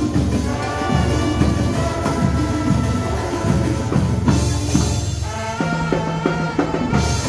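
Marching band playing live: brass carrying a melody over steady drum strokes. A little past halfway the higher parts drop away and one low note is held under drum hits, then the full band comes back in just before the end.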